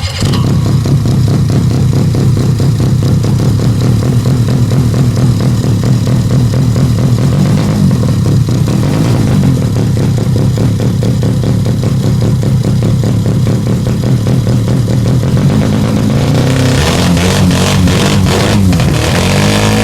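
Norton rotary (Wankel) motorcycle engine, built from reject drone-engine parts, running loud just after firing up, then revved up and down from about three quarters of the way in.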